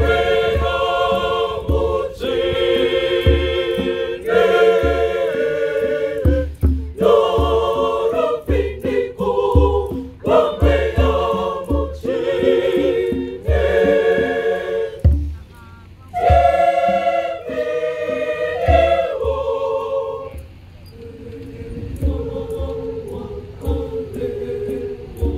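Large mixed church choir singing a hymn in harmony, in held phrases of about two seconds with short breaks, over low thumps. The singing turns softer about twenty seconds in.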